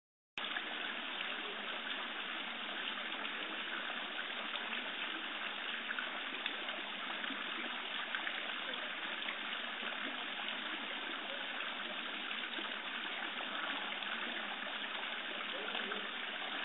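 Water from a stone fountain falling from its basin and splashing steadily into the pool below.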